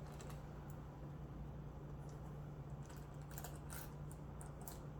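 Faint, scattered light clicks of a handbag's metal chain strap being handled, over a steady low hum.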